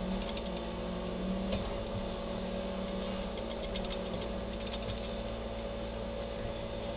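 Scrap-handling grapple crane's engine and hydraulics running steadily while the boom slews, a constant hum with a steady whine over it and a few faint ticks, heard from inside the operator's cab.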